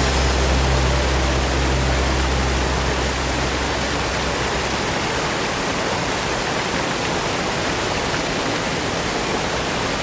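Steady rushing of a waterfall, an even full hiss of falling water. Low held tones underneath die away about four seconds in.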